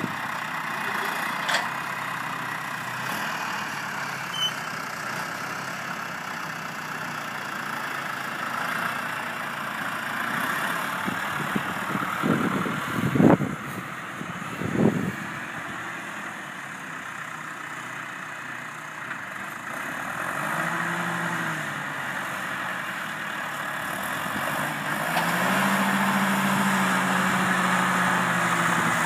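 John Deere tractor engine running, revving up briefly about two-thirds of the way in and again, held higher, over the last few seconds as the front loader carries a round bale. Two loud thumps come about halfway through.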